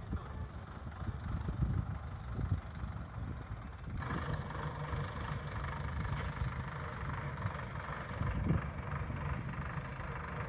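Engine running steadily as a round baler works; about four seconds in, a higher mechanical whir from the machinery joins and carries on.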